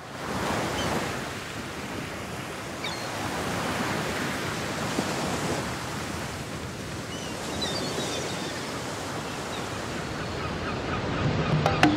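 Ocean surf washing in a steady, swelling rush, with a few faint high chirps over it. Percussive music with a beat comes in near the end.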